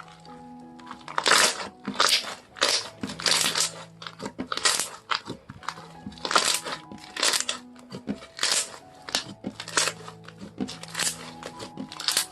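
Homemade slime being pressed and squeezed by hand, giving a run of crackly, squishy crunches about every half to three-quarters of a second, over soft background music.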